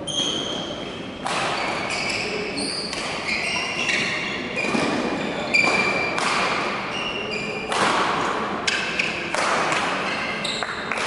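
A badminton rally: players' court shoes squeaking sharply on the hall floor many times, with racket strikes on the shuttlecock and footfalls.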